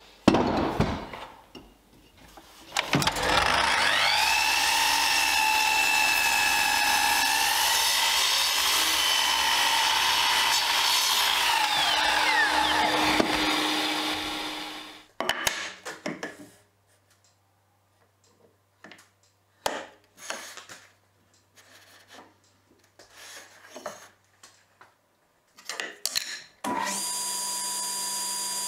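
A Festool sliding miter saw's motor whines up to speed a few seconds in, runs loud and steady through a cut in a board for about ten seconds, then winds down and stops. Scattered knocks and clicks of wood being handled follow, and near the end a table saw starts and runs steadily.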